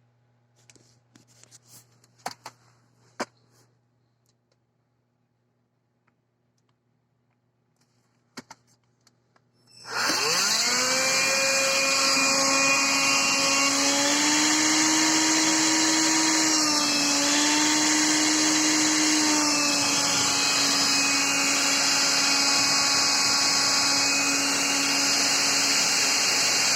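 Electrolux ZB3114AK 18V cordless stick vacuum: a few sharp clicks, then about ten seconds in the motor spins up with a rising whine and runs steadily at full suction with a strong airy hiss, powered by its replacement lithium battery pack.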